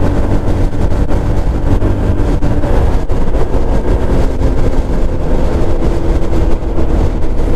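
Chinese 150cc GY6 scooter engine running steadily at cruising speed, with heavy road and wind rush. The engine's pitch shifts slightly under three seconds in.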